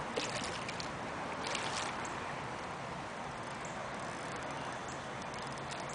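Hooked carp splashing at the pond surface: a few brief splashes in the first two seconds, over a steady low hum of outdoor background noise.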